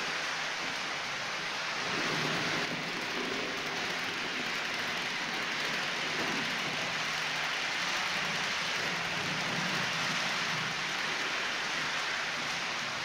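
H0-scale model freight train of tank wagons running on the layout track: a steady rolling hiss of metal wheels on the rails, with a low hum underneath.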